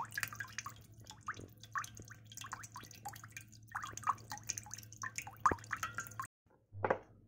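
Fermenting banana-peel liquid in a plastic bottle fizzing with many small, irregular pops and crackles as gas bubbles burst, a sign of active fermentation. The sound cuts off suddenly about six seconds in, and one short noise follows just before the end.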